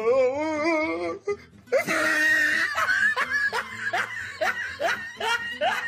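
A person laughing: a wavering, shaky laugh for about a second, then a long run of quick repeated bursts of laughter.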